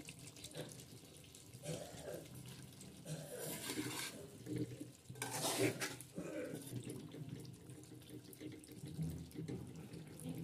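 A metal spoon stirring and scraping through soft-cooked potato slices in a thin, wet tomato gravy in a metal kadhai, with two louder scrapes around the middle.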